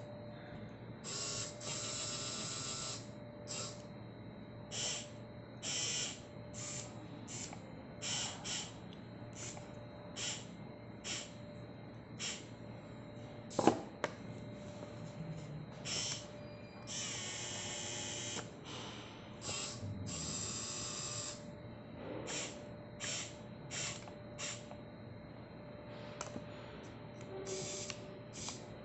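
Small servo motors of a building-block robot hand whirring in many short bursts, with a few longer runs of about two seconds, over a steady faint tone. A single sharp click about halfway through.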